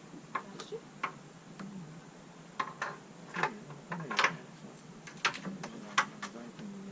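Irregular sharp clicks and taps from Christmas light strings and small plastic hooks being handled, with several louder clicks in the second half, over a faint steady low hum.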